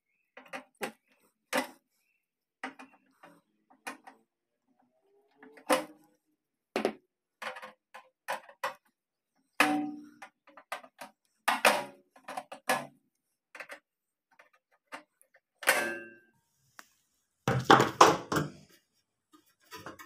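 Pliers cutting and snapping the thin sheet-metal tabs of a microwave oven's access cover over the turntable motor: a series of irregular, sharp metal clicks and snips, then a louder clatter of metal near the end.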